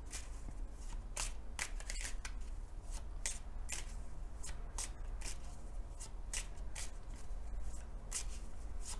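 Lenormand cards being handled and laid out one at a time: a string of short, crisp card flicks, irregular, roughly two a second.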